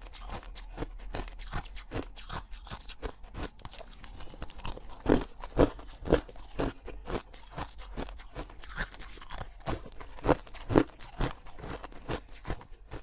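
A person biting and chewing something crunchy: rapid crisp cracks several times a second, with a few louder bites about five, six, ten and eleven seconds in.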